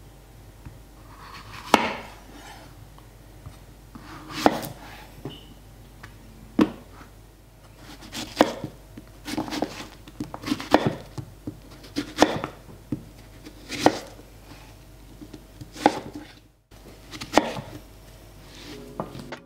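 Chef's knife cutting through a zucchini and striking an end-grain wooden cutting board: single sharp knocks every one to two seconds, a few in quick pairs.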